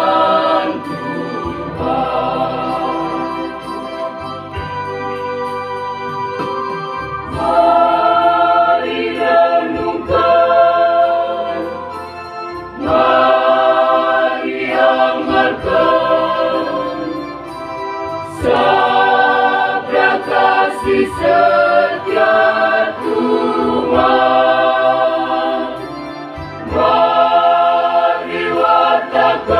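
Mixed church choir singing a hymn in parts, accompanied by an electronic keyboard, in phrases that swell louder and fall back.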